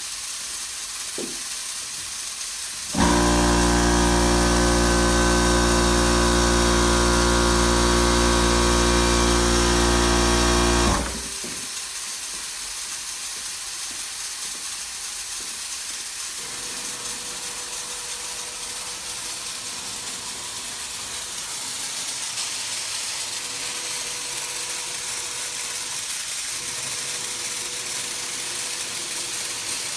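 Steady hiss of compressed air through the robot's paint spray guns. From about three seconds in to about eleven seconds the air compressor's motor runs with a loud, steady hum, starting and stopping abruptly.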